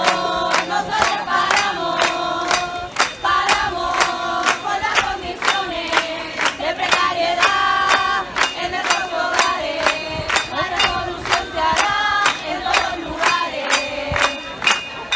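Many women's voices singing in unison over a steady percussive beat of about three strikes a second.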